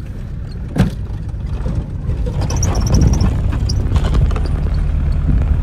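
Car driving on a sandy dirt street, heard from inside the cabin with the side window down: a steady low engine and road rumble that grows louder about two seconds in, with one sharp click about a second in.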